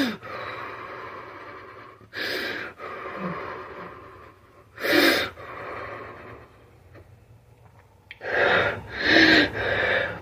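A woman crying: gasping, sobbing breaths with pauses between them. There are a few spread out at first, then a quicker cluster of sobs near the end.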